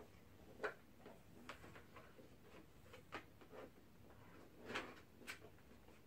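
Faint light clicks and taps from the Bissell PowerForce Helix upright vacuum and its power cord being handled, the clearest about two-thirds of a second in and just before five seconds; the vacuum's motor is not running.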